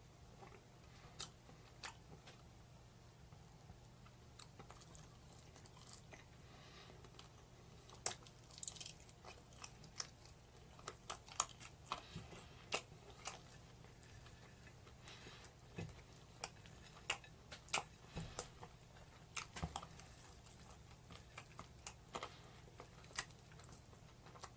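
A person chewing and biting into roast chicken at close range, with sharp wet clicks and crunches of skin and bone. The clicks are sparse at first and come thick and fast from about eight seconds in.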